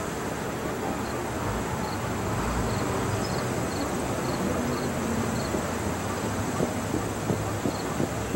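An insect chirping over and over in short pulsed chirps, about two a second, over a steady low rumble from a distant train approaching on the line.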